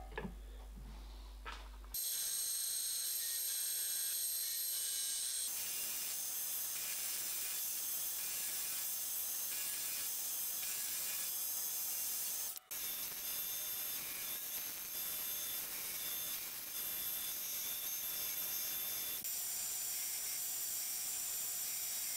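Milling machine running with an end mill cutting yellow-metal bearing blocks held in a machine vise: a steady cutting hiss with a high whine. Before it starts there are a few small clicks of the blocks being handled in a bench vise. The sound changes abruptly a few times where the footage is cut.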